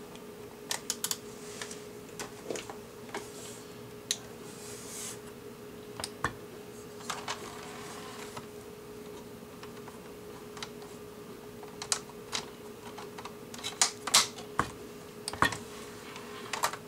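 Plastic clicks, knocks and brief rustling as the front panel is fitted back onto a Philips AJ6111/37 under-cabinet CD player, the sharpest clicks coming near the end, over a steady low hum.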